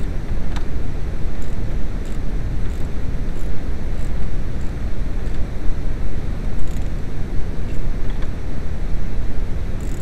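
Steady low rumbling noise, with faint scattered clicks of a ratchet wrench turning the steering-column nut.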